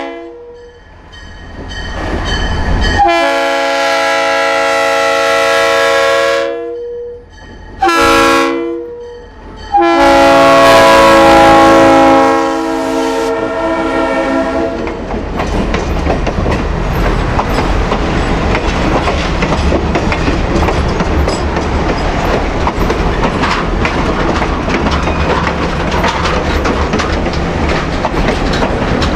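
Diesel locomotive's multi-chime air horn blowing the grade-crossing signal: a long blast, a short one and a final long one, after a long blast just before. Then the locomotive's engine and wheels clicking over rail joints in a steady run.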